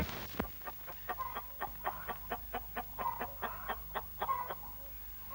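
Domestic hens clucking: a steady run of short clucks, about three or four a second, over a steady low hum.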